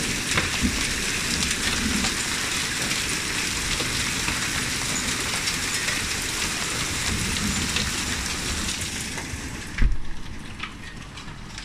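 Small hailstones and rain pelting a wooden deck: a dense, steady patter full of small hard clicks. About ten seconds in comes a single thump, after which the patter is fainter.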